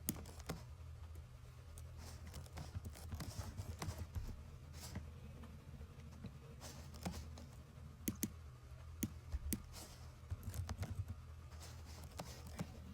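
Irregular clicks and taps of a computer keyboard and mouse over a low steady hum.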